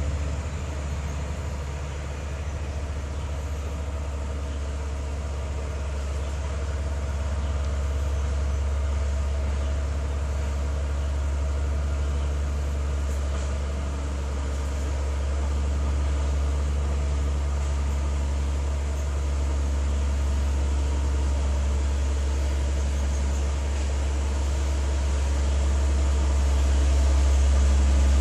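Caterpillar 12E motor grader's diesel engine running steadily, swelling a little louder near the end.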